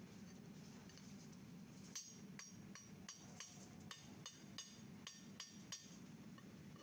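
A small hammer taps lightly about a dozen times on a sand-cast aluminium finned casting, each tap short with a metallic ring, about three taps a second, starting about two seconds in.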